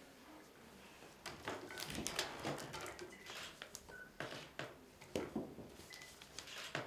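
Newspaper paper rustling and crackling in irregular bursts as it is handled and unfolded.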